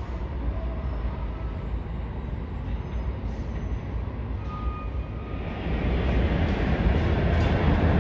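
A New York City subway train runs through the underground station. A steady low rumble grows much louder from about five seconds in as the train approaches the platform.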